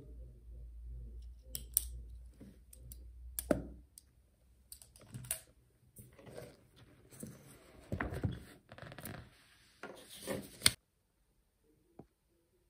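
Irregular clicks and rustles of pens, paper and a notebook being handled on a desk, with a low hum under the first few seconds. The sounds stop abruptly about eleven seconds in.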